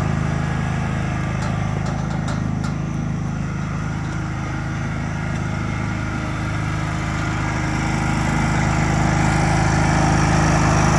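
John Deere riding lawn tractor's engine running steadily as it drives across the grass towing a cart. It dips a little as the tractor moves off, then grows louder near the end as it comes back toward the microphone.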